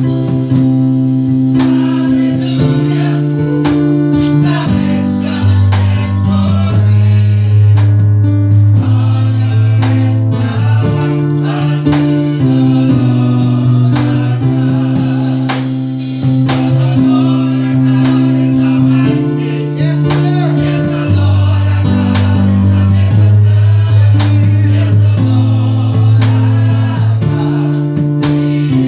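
A small gospel church choir singing with a band, over held bass chords and a steady beat.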